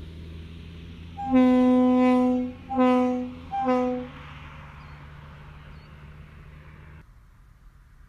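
Conrail RS25 single-chime locomotive air horn sounded three times: a long blast of about a second, then two short ones, each a single steady note.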